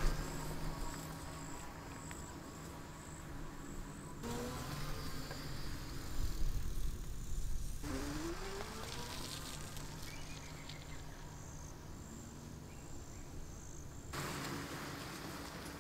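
Electric bike motor whining with a steady hum, its pitch rising twice, about four and eight seconds in, as the bike picks up speed, over the rumble of riding. A faint, high, pulsing chirp runs through much of it.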